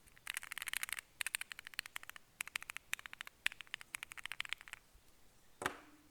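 Typing on a Leobog Hi75 aluminum keyboard in a clacky build, with lubed and filmed Alpaca V2 linear switches, the PE foam and PET sheet removed and the force break mod fitted. A fast run of clacky keystrokes lasts about four and a half seconds, then a single louder keystroke comes near the end with a brief low ring after it.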